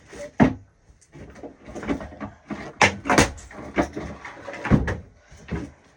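Rummaging through a drawer for a hair straightener: a quick run of knocks and clatters as the drawer is worked and things inside are shoved about.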